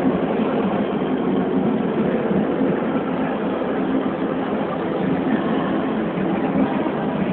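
Steady crowd din of many overlapping voices, echoing in a large exhibition hall, with no distinct impacts on the ring.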